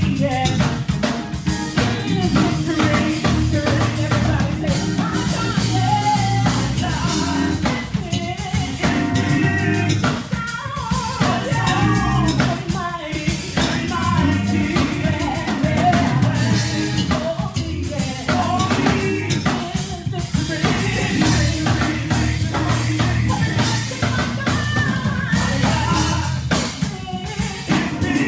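Gospel praise music: singing over a drum kit and bass with a steady beat.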